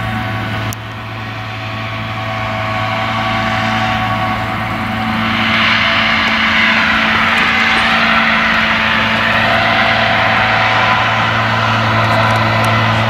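Claas Jaguar self-propelled forage harvester working at full load as it chops whole-crop cereal: a steady engine drone under the rushing hiss of the chopper and crop blower. The sound grows louder and hissier from about five seconds in as the machine comes closer.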